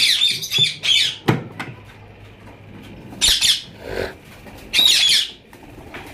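Indian ringneck parakeets giving harsh alarm squawks, frightened by people near their nest: several in quick succession, then two more about three and five seconds in. A sharp click about a second in.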